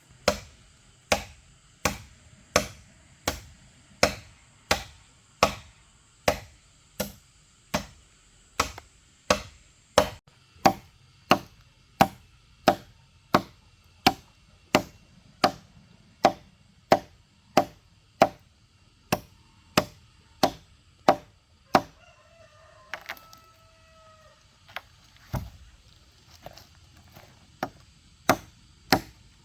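A cutting tool chopping into wood with sharp, regular strikes, about three every two seconds, the strokes growing sparser in the last few seconds. A rooster crows once, past the two-thirds mark.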